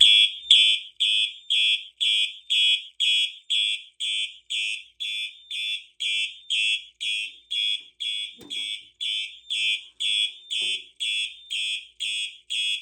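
Simplex 4903-9424 horn strobe sounding in alarm from a Simplex 4004 fire alarm panel, coded for 120-beat march time: short, shrill, evenly spaced horn blasts at about two a second.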